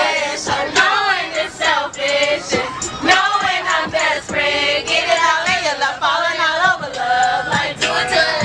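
A group of young people singing along together to a song, their voices blending with the recording; long wavering sung notes throughout.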